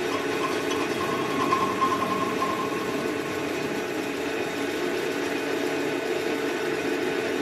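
Metal lathe running at 700 rpm, turning the end of a cast phosphor-bronze bar with a steady machine hum. A thin high tone sounds over the hum for the first two or three seconds.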